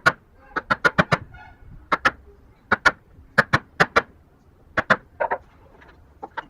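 Repeated sharp knocks of hand tools striking wood, in quick groups of two to four.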